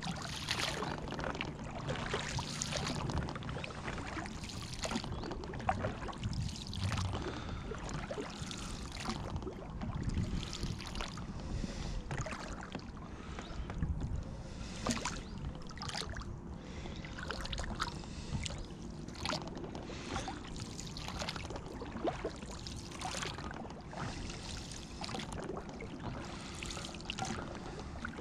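Oars of an inflatable rowing boat dipping and pulling through calm water, with a splash and swirl at each stroke, about one every second and a half.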